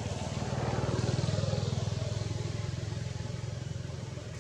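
A passing motor vehicle's engine, growing louder about a second in and then slowly fading.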